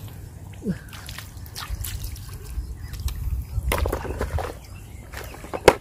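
Hands splashing and sloshing in shallow muddy water while picking up freshwater clams, with scattered drips and small clicks. One sharp click comes near the end.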